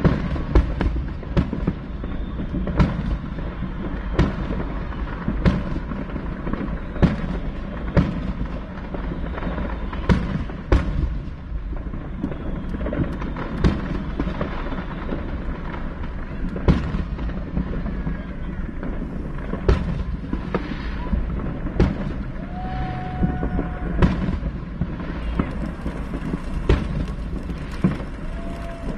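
Aerial fireworks exploding: about two dozen sharp bangs at irregular intervals, heard from inside a car, over a steady low rumble.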